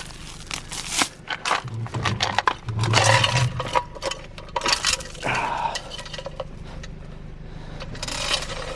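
Steel chain of a chain-fall hoist clinking and rattling in irregular bursts as it is picked up and handled, with scraping of metal on metal.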